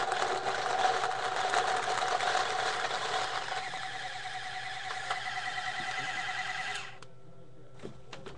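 ViewLoader Velocity electric paintball hopper with a Dynasty five-prong rotor upgrade running, its motor whirring steadily as paintballs rattle out through the feed neck. It cuts off suddenly near the end.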